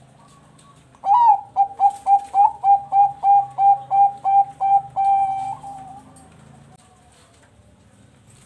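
Zebra dove (Bangkok-strain perkutut) singing its cooing song: a rising opening note about a second in, then a quick even run of about a dozen short coos, ending on a longer held note around five seconds in.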